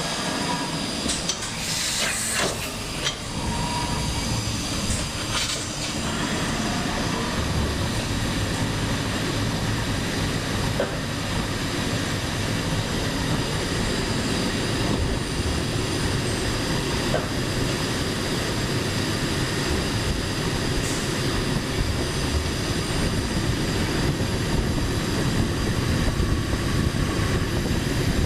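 Hitachi Seiki Super Hicell 250 CNC turning and milling centre running: a steady, continuous machining noise, with a few sharp clicks in the first few seconds.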